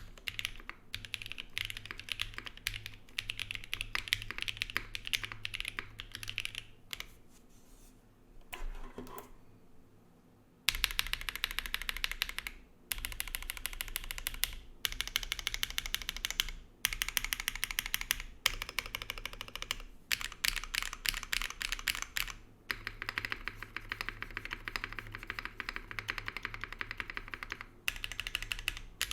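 Zoom75 SE mechanical keyboard with KTT Strawberry V2 linear switches, a carbon fiber plate, no foam and GMK keycaps, typed on in quick continuous runs of keystrokes. Near the middle the typing thins out for a few seconds, then resumes louder and denser, broken by brief pauses.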